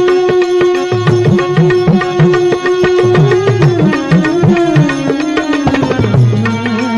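Bhajan music with no singing: a melody line holds one long note, then wavers and slides downward about halfway through. Repeated hand-drum strokes keep a steady rhythm underneath.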